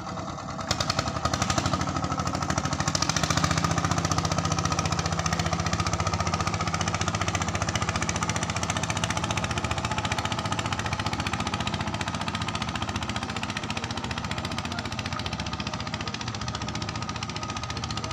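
A boat engine running steadily with a fast, even knock, getting louder about a second in.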